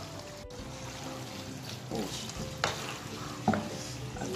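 Wooden spatula stirring macaroni through sauce in a hot pan, over a low sizzle, with a few sharp scrapes and knocks of the spatula against the pan, the clearest about two and a half and three and a half seconds in.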